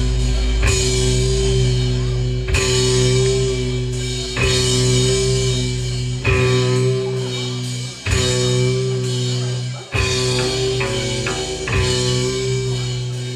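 Punk band playing live: loud electric guitar, bass and drums, with a chord hit about every two seconds and left to ring, cymbals washing over it.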